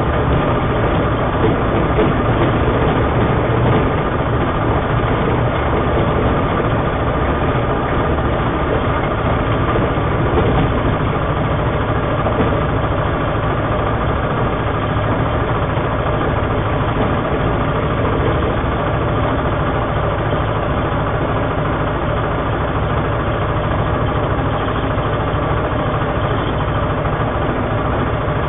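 Engine and propeller of a homebuilt Kitfox-type light aircraft running steadily, heard from inside the cockpit, slightly louder for the first ten seconds or so.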